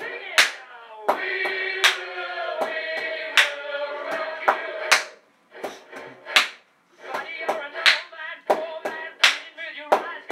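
A hand slapping a yellow Labrador's body, drummed like bongos: sharp pats at an uneven beat, with a voice singing over them and two short pauses midway.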